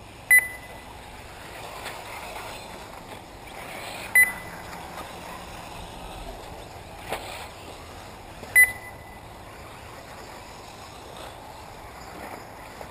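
Three short, loud electronic beeps about four seconds apart, like a race lap-counter beeping as buggies cross the timing line. They sound over a steady outdoor background of race noise, with a sharp click about seven seconds in.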